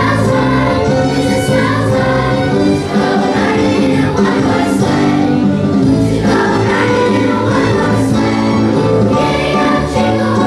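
Children's choir singing a song.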